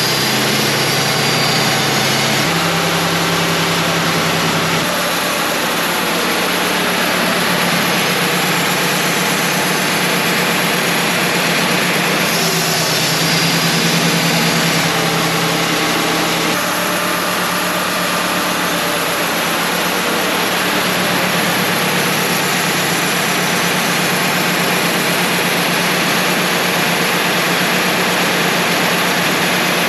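Wood-Mizer LT35 portable sawmill running steadily, its engine note shifting in pitch a few times.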